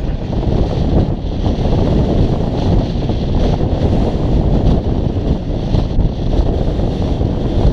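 Wind buffeting the camera's microphone: a steady, loud rumble of noise heavy in the lows, with no let-up.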